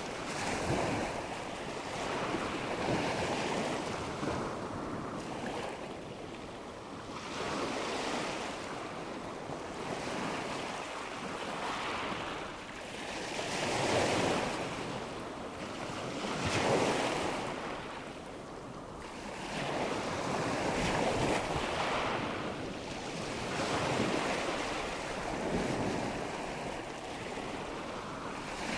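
Ocean waves breaking and washing on a shore, a steady hiss of surf that swells and fades in a slow rhythm, a wave every two to three seconds.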